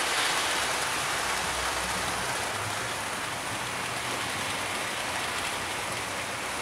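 OO gauge model trains, including a rebuilt Merchant Navy class steam locomotive, running on the track: a steady hiss of metal wheels rolling on rails with a low hum from the small electric motors.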